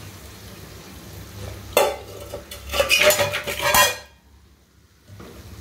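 A metal spoon knocking and scraping against a steel cooking pot: a run of clinks and scrapes with a ringing metallic note, starting about two seconds in and stopping about four seconds in, over a low steady hum.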